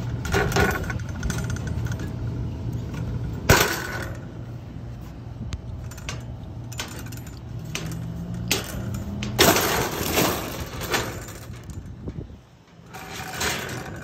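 Metal clinks and clatters from sheet-metal panels and tools being handled on a rooftop HVAC package unit, over a steady low machinery hum. There is a sharp knock about three and a half seconds in and a longer, louder clatter around ten seconds.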